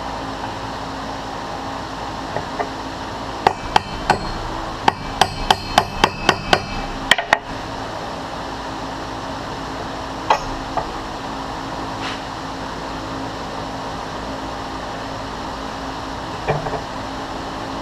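Light metal tapping: about ten sharp, ringing strikes over roughly four seconds as a keyway broach and shim are set into the bore of a brass impeller, then a couple of single knocks later on. A steady shop hum runs underneath.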